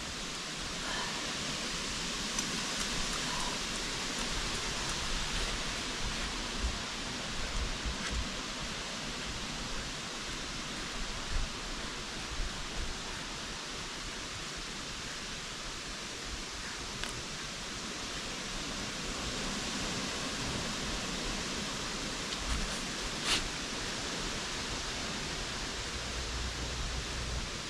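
A steady, even hiss of background noise, with a few faint clicks.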